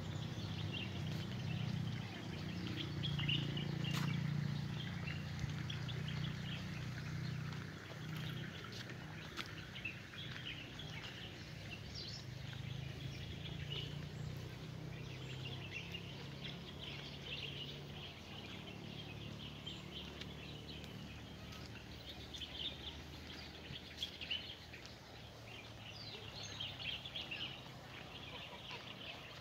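Many small birds chirping and twittering in the trees, over a low steady rumble that is strongest in the first half.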